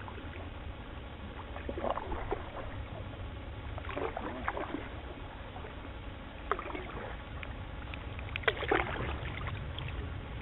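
Canoe paddle strokes splashing and pulling through the water, about one every two seconds, over a low steady rumble.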